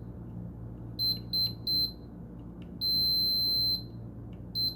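Multimeter's test beeper sounding as the probes are touched across a MOSFET's pins: three short high beeps in quick succession, then one beep held for about a second, then a last short beep.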